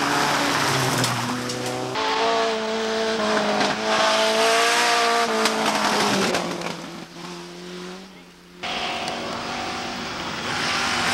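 Rally cars at speed on a gravel stage, one after another: engines revving hard and changing pitch as each car passes, over tyre and gravel noise. The sound changes abruptly about two seconds in, and again about eight and a half seconds in after one engine fades away.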